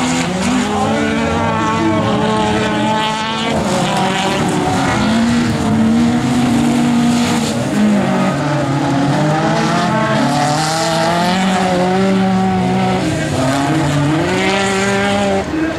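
Autocross race car engines at full race revs on a dirt track, the pitch climbing and dropping again and again with throttle and gear changes, several cars overlapping at different pitches.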